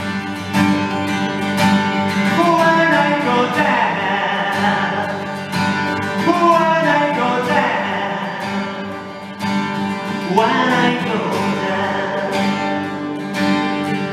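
Acoustic guitar strummed steadily while a man sings in long, wavering, gliding notes, with a sharp upward wail about ten seconds in.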